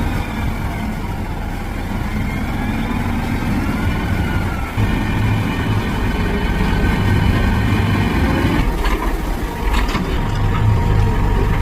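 Concrete mixer truck's diesel engine running steadily, with a couple of sharp knocks about nine and ten seconds in.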